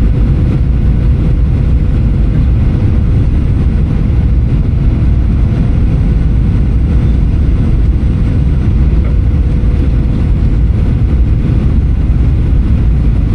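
Steady low rumble inside the cabin of a Boeing 737-800 airliner, with a faint steady tone above the rumble.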